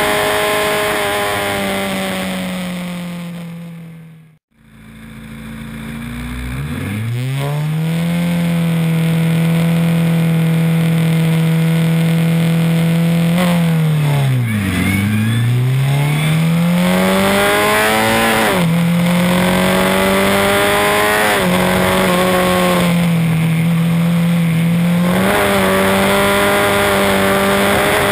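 Formula Ford's 1600 cc Ford Kent four-cylinder engine heard from the cockpit. Its revs fall away and the sound fades out briefly about four seconds in. It comes back and holds steady revs, dips sharply, then climbs through a run of rising upshifts and keeps running hard through the gears.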